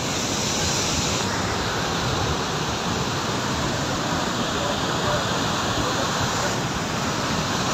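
Muddy floodwater torrent rushing down a mountain channel: a steady, unbroken rush of water.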